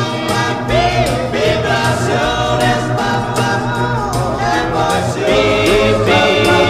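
Song playing: layered group vocal harmonies with gliding pitches over a steady bass line and light percussion.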